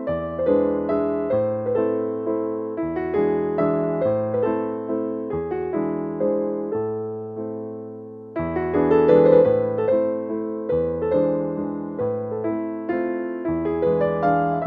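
Background piano music: a gentle melody of struck notes, each fading away, over bass notes that change every second or so. It gets louder a little past halfway.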